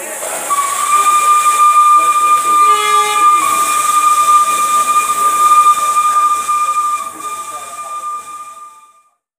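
Locomotive air horn sounding one long, steady high-pitched blast of about nine seconds, with a hiss of air alongside it. A second set of tones joins briefly about three seconds in, and the blast fades away near the end.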